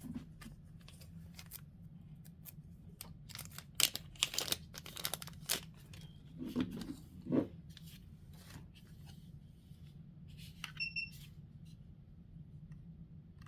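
Plastic clicking, scraping and rattling as a detaching pin is worked into an Aosu video doorbell to release a part of it. There is a cluster of sharp clicks from about four to seven seconds in, and a brief high beep later on.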